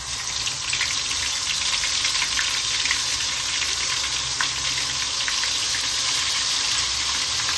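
Hot oil and ghee with whole spices sizzling steadily in an aluminium pot, with scattered small pops and crackles as ginger-garlic paste is spooned in.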